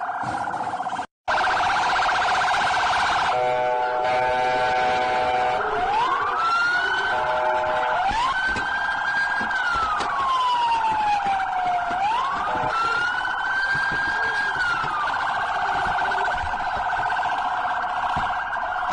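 Electronic police car siren cycling through its tones: a fast warble, a short stepped-tone pattern, then slow rising and falling wails, and back to the fast warble. It cuts out briefly about a second in.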